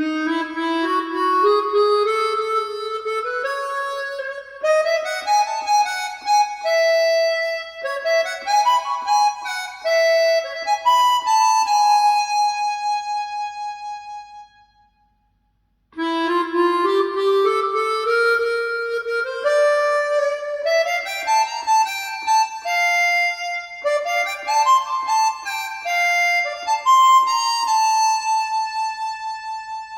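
Music played through a KEF iQ1 bookshelf speaker: a solo melody on a wind instrument in two phrases, each opening with a rising run of notes, with a short pause about halfway.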